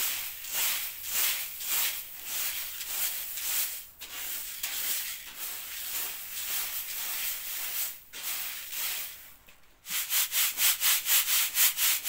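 Boiled wheat grain rasping and swishing in a wooden-rimmed sieve as it is shaken and worked through by hand, sifting out small seeds and grit. The strokes come in a steady rhythm, then near the end turn quicker and louder, about five a second.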